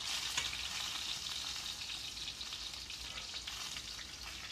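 Oil sizzling steadily as small stuffed brinjals shallow-fry in a pot over low heat, with faint clicks of a metal spoon against the pot as they are lifted out.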